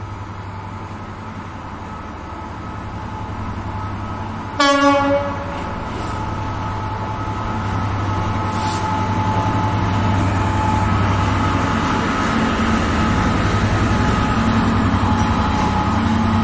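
Freightliner Class 66 diesel locomotive's two-stroke V12 engine running as it hauls a freight train past, growing louder as it approaches. About four and a half seconds in, one short horn blast sounds.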